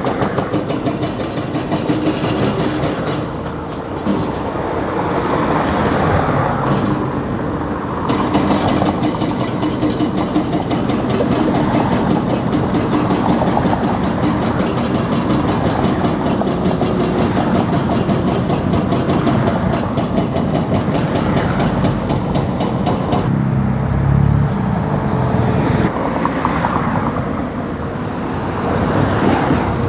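Excavator-mounted hydraulic breaker hammers pounding concrete in rapid blows over the steady running of the excavators' diesel engines.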